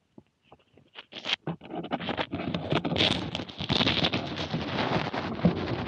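Underwater scratching and clicking from a camera housing rubbing and knocking against stream rock. It starts as sparse faint ticks, then turns into dense crackling scrapes about a second and a half in.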